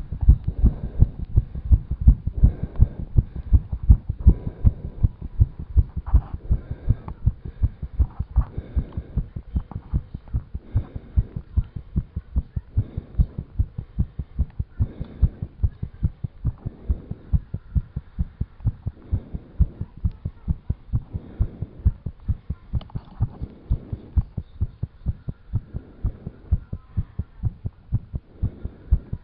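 A person's heartbeat, recorded close up straight after exercise: regular low thumps at about two a second, a fast rate raised by the exertion.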